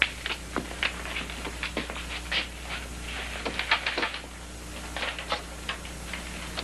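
Wicker basket creaking and crackling as it is handled and carried, an irregular run of sharp clicks.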